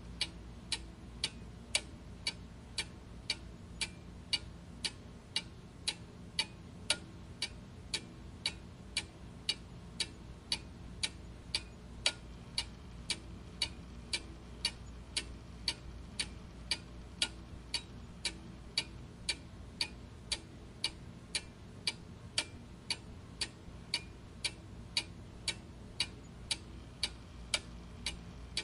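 Clock ticking steadily and evenly, about two ticks a second, over a faint low hum.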